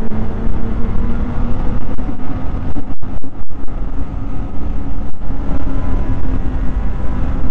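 Snowmobile engine running steadily while riding along a groomed trail, over a heavy low rumble. The sound cuts out for an instant twice, about three seconds in.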